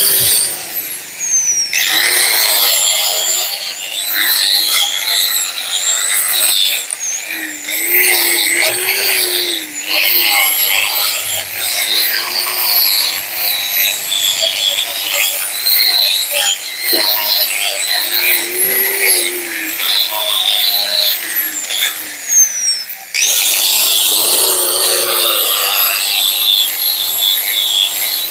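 Electric angle grinder running against a steel suspension coil spring, grinding off the old paint and rust. The motor's steady whine wavers as the pressure on the spring changes, easing off briefly about a second and a half in and again near 23 seconds.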